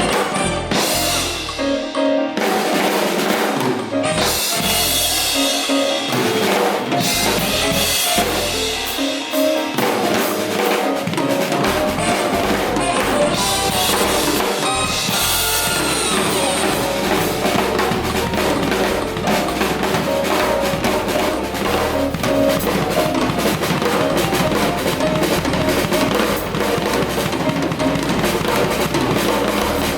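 Music with a full drum kit playing: kick drum, snare and cymbals over sustained pitched instruments.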